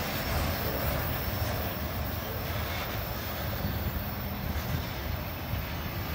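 Low rumble of a freight train's last covered hopper cars rolling away on the rails, fading slowly as they recede.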